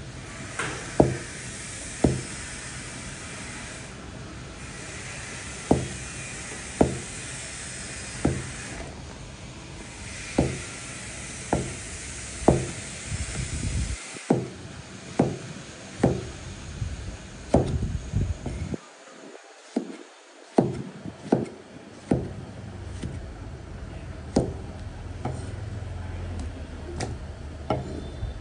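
Kitchen knife slicing through tomatoes and knocking on a thick plastic cutting board, one sharp stroke about every second. A steady hiss runs behind the strokes until about halfway through.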